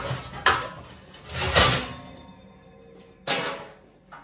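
Kitchen clatter: three knocks or bangs, about half a second, a second and a half and three seconds in, the later two leaving a short metallic ring.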